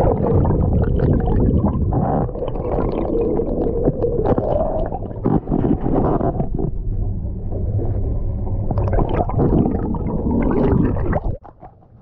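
Muffled rushing and gurgling of water over a camera held underwater beside a moving canoe. It starts abruptly as the camera goes under and cuts off about eleven seconds in, when it comes back out of the water.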